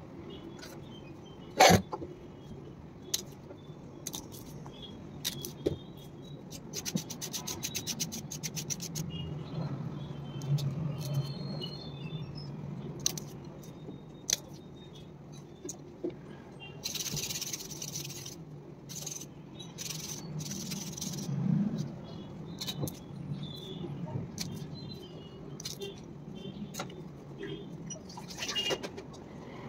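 Kitchen food-prep sounds: a knife working on a ridge gourd at a stone counter, with scattered clicks and knocks of utensils. There is a sharp knock about two seconds in, a quick run of clicks around eight seconds, and a couple of seconds of hiss near the middle.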